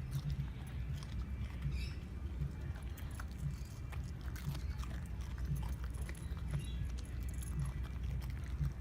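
Corgi–Sheltie cross dog chewing green beans, with irregular crisp clicks and crunches as it bites.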